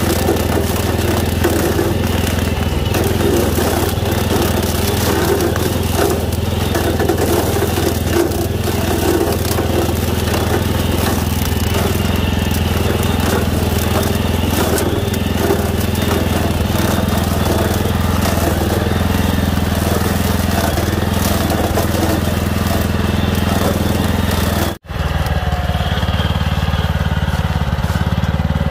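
Walk-behind power tiller engine running steadily under load while its attached rotary cutter blade chops through standing corn stalks, a crunching noise over the engine. The sound breaks off for an instant about three-quarters of the way through, and the engine then carries on with less crunching.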